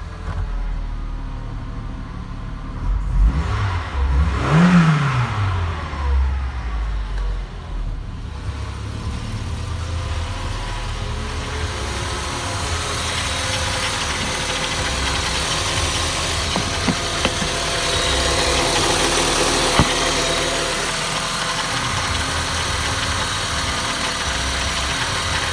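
Peugeot 806's 2.0-litre XU10J2 (RFU) four-cylinder petrol engine running cold just after starting, revved up and back down once about four seconds in, then idling steadily. Heard from inside the cabin at first, then close up in the open engine bay, where it sounds brighter and hissier.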